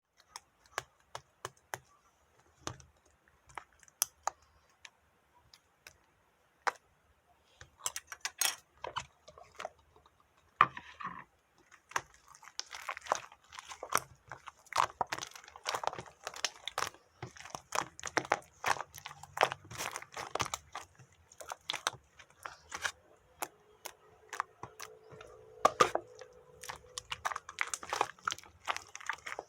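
A small pet chewing crunchy food: scattered crisp clicks for the first ten seconds or so, then dense, continuous crunching from about twelve seconds in.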